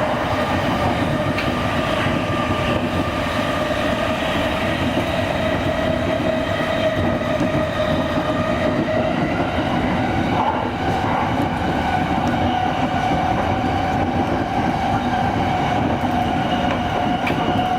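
Shonan-Shinjuku Line electric commuter train running on the rails, heard from on board: a steady rumble of wheels and track under a droning whine that sags slightly in pitch, then rises about ten seconds in.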